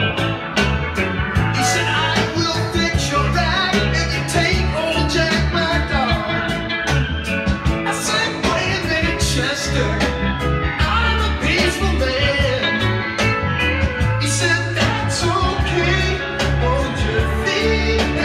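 A song with a singer and a steady beat played back through loudspeakers driven by a Dynaco ST-35 tube stereo amplifier with its original output transformers.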